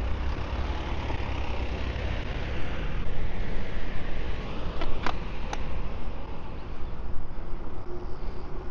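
Road traffic noise with wind rumbling on the microphone while cycling along a road with cars. A few short clicks come about five seconds in.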